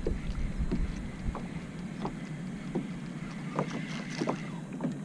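Small waves lapping and slapping against a plastic kayak hull, with short light ticks scattered through. Wind buffets the microphone for the first second or so and then eases.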